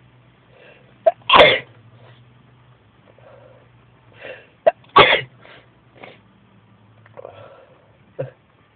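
A man sneezing twice, about a second and a half in and again about five seconds in, each sneeze opened by a short sharp catch just before the main blast. A smaller breathy burst comes near the end.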